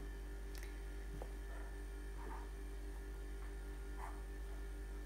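Steady low electrical hum, with a few faint soft scuffs of a hand stirring dry flour in a glass bowl.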